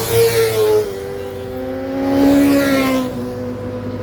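Car engines accelerating past, revving up: one brief swell right at the start and a second, longer one around the middle.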